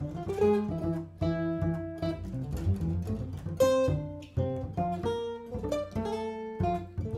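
Archtop jazz guitar and plucked double bass playing a jazz blues in F together, the guitar picking chords and single notes over the bass notes.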